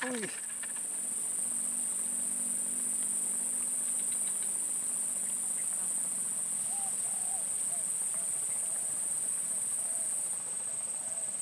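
A steady, high-pitched chorus of insects, dropping slightly in level near the end. From about the middle on, faint short calls repeat underneath it.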